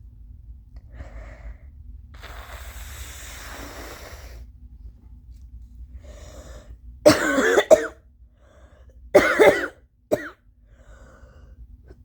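A person blowing their nose hard for about two seconds, then wet, phlegmy allergy coughs: a loud cough bout about seven seconds in, another about two seconds later and a short one right after, with faint breaths between.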